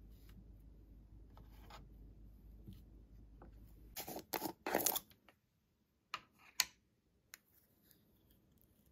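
Screw lid of a plastic peanut butter jar being twisted open in a few short scraping bursts, followed by two light clicks. Before that, faint rustling of hands moving banana slices on a wooden cutting board.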